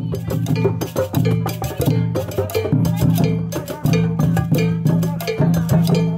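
Upbeat music driven by a quick, even run of sharp percussion strikes over a steady low bass line.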